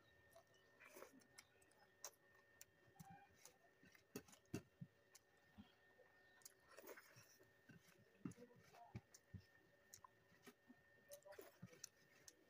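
Faint eating sounds: soft chewing with scattered small clicks and taps, over a faint steady hum.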